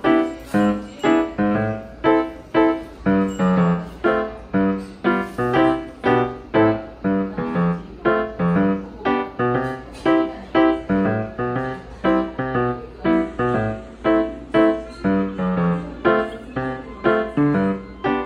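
Background music: a piano tune with evenly paced notes, about two to three a second, each ringing and fading before the next.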